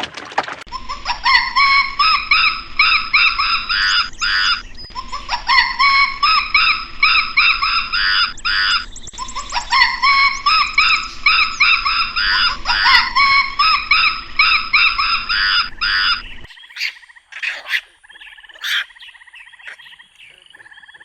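An animal calling in repeated phrases of quick, rising notes, four phrases a few seconds apart. About three-quarters of the way through it cuts off suddenly to a quieter recording with scattered clicks and faint tones.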